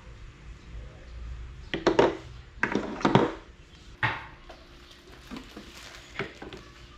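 Hard objects being handled, knocking and clattering irregularly, with a few loud clunks about two and three seconds in and another knock about a second later.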